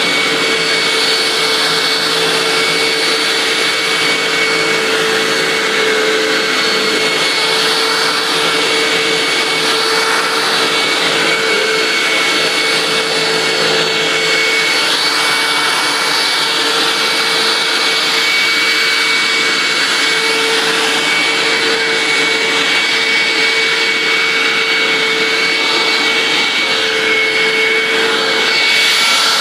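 Hoover WindTunnel self-propelled upright vacuum cleaner running steadily, its motor's hum and high whine held level throughout.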